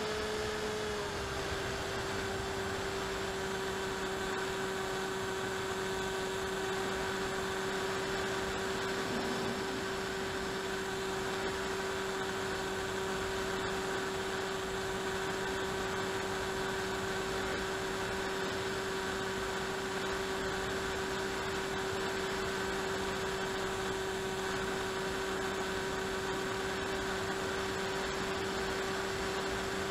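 Electric motor and propeller of an AXN Clouds Fly RC plane running steadily in flight, heard from the onboard camera: a steady whine that drops slightly in pitch about a second in, over a hiss of air.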